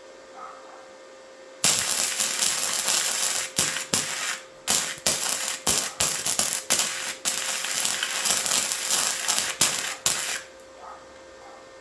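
Flux-core arc welding with a Titanium 125 welder and .035 wire: the arc crackles and sputters for about nine seconds, cutting out briefly and restarting several times. The sputtering arc is typical of welding on rusty steel, which the welder takes to be the cause.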